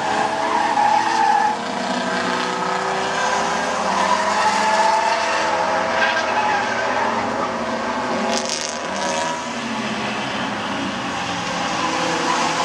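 Race car engines running hard, their note rising and falling as the cars go through the corners, with a short high tyre screech about eight seconds in.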